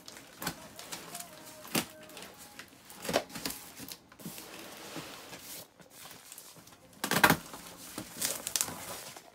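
A cardboard shipping carton being opened by hand: irregular scraping, tearing and rustling of cardboard and packing tape, the loudest burst about seven seconds in.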